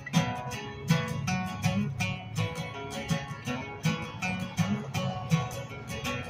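Two acoustic guitars played together as an instrumental duet, with quick strummed chords and picked notes.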